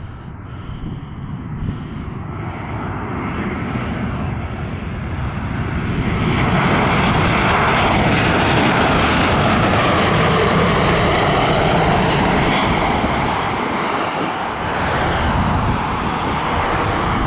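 Boeing 737-800's CFM56-7B turbofan engines as the jet comes in to land low overhead. The engine noise builds for about six seconds, holds loud, dips, then swells again briefly near the end as the jet touches down.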